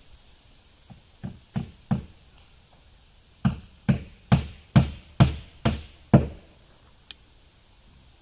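Hammer strikes: four lighter taps, then after a short pause seven harder blows at about two a second.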